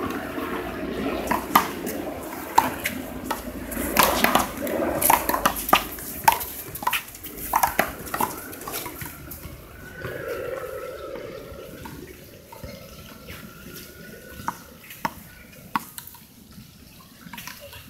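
One-wall handball rally on an outdoor concrete court: sharp smacks of the small rubber ball off gloved hands, the wall and the ground. They come fast through the first half and thin out to a few scattered hits once the point ends.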